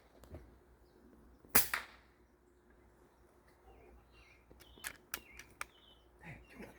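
A single air rifle shot about one and a half seconds in, a short sharp report, followed a few seconds later by several light clicks.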